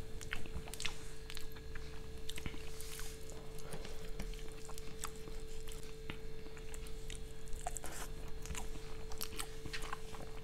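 Person eating rice and aloo gobi by hand: scattered soft clicks of chewing and of fingers mixing rice on a steel plate, over a faint steady hum.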